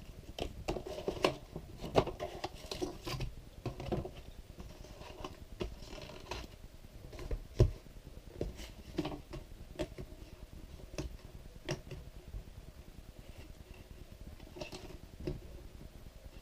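Irregular clicks, taps and light rustling of small objects and packaging being handled, with a sharper knock about seven and a half seconds in.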